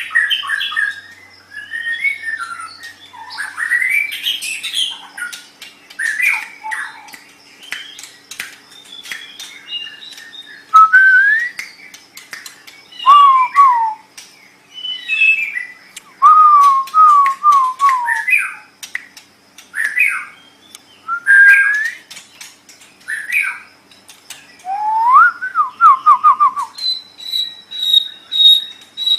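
White-rumped shama (murai batu) singing a varied song: short phrases of clear whistles that rise and fall, mixed with sharp clicks, coming in bursts with short pauses. Near the end it holds one long, steady high note.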